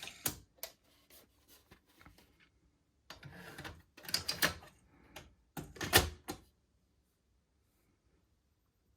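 Top-loading cassette compartment of a 1982 Panasonic NV-7200 VHS recorder and a cassette being handled: a run of sharp mechanical clicks and rattles, a rubbing slide about three seconds in, and the loudest clunk about six seconds in.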